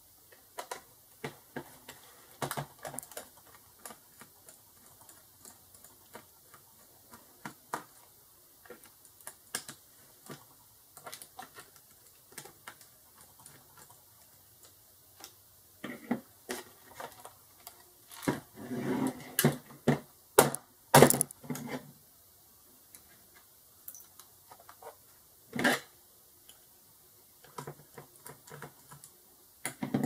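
Irregular small clicks and taps of a screwdriver working the screws of a plastic laptop bottom case. A little past halfway comes a burst of louder knocks and clatter as the laptop and screwdriver are handled.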